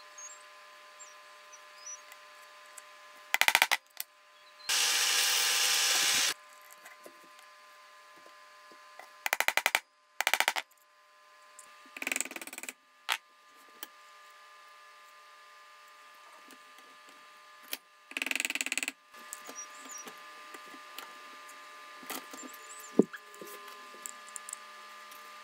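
Short bursts of rapid hammer taps on metal, the loudest and longest a run of about a second and a half some five seconds in, with further bursts around ten, twelve and eighteen seconds in. A ball-peen hammer is shaping the small metal pocket clip held in a bench vise.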